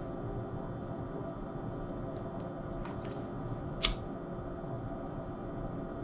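A few faint clicks, then one sharp click a little before four seconds in, over a steady low hum.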